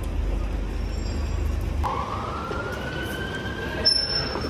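Emergency-vehicle siren starting about two seconds in, one slow wail gliding upward in pitch over steady city street noise.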